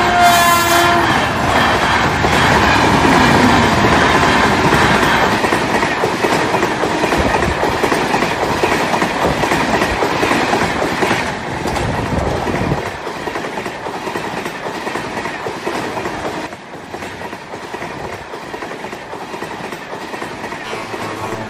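Electric locomotive's horn sounding and cutting off about a second in, then a long container freight train passing, its wagons rolling and rattling over the track. The train noise drops off somewhat after about 13 seconds and carries on more quietly.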